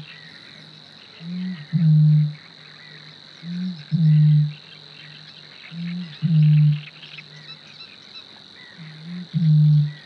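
Eurasian bittern booming: four deep, hollow booms about two seconds apart, each preceded by a short, quieter note. This is the male's breeding-season call, the lowest voice of any Polish bird and likened to blowing across a bottle.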